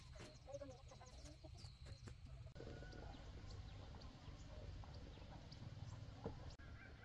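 Chickens clucking faintly in scattered short calls over a low steady rumble.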